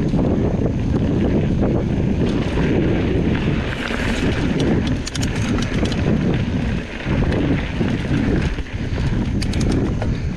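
Wind buffeting the action camera's microphone as a mountain bike rolls fast over a dirt trail, with tyre rumble and rattling from the bike. Runs of sharp clicks come about five seconds in and again near the end.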